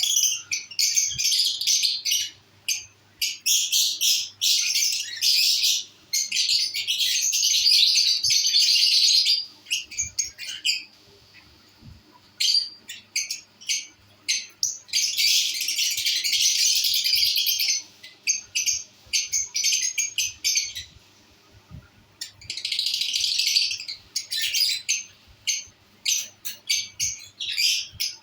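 Lovebirds chattering in rapid, high-pitched chirps, in long runs broken twice by pauses of a few seconds.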